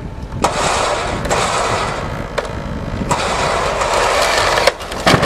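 Electric WARN truck winch running under load, reeling in its cable to pull the pergola over, with a few light ticks. The motor stops near the end, followed by a few sharp knocks.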